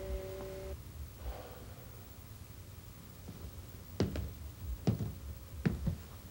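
A held two-note tone stops about a second in, leaving a low hum. About four seconds in, sharp knocks begin, roughly one a second, and the last two come close together.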